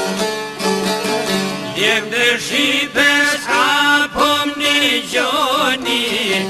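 Instrumental opening of an Albanian folk-style song of emigration (këngë gurbeti). A plucked string instrument plays, and about two seconds in an ornamented lead melody with wavering turns comes in over it.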